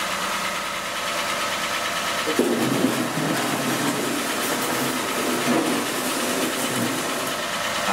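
Engine of a small Peugeot 107 / Citroën C1 / Toyota Aygo city car idling steadily on a newly fitted exhaust pipe, now quiet with no exhaust leak or rattle. It is warming up so the exhaust sealing paste can set. A rougher, uneven lower noise joins in from about two seconds in and fades out near the end.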